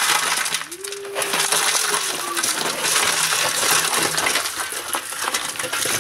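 Broken ice cubes clattering and clinking as they are tipped into the gap between a stainless steel ice-cream tub and the rice thermos around it, packing it with ice.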